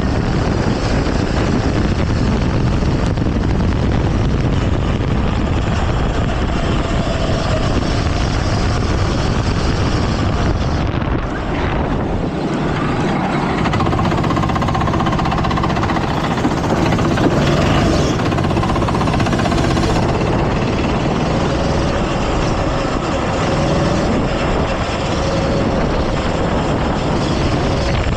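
Go-kart engine running continuously at race pace, heard onboard, its pitch slowly rising and falling as the throttle changes.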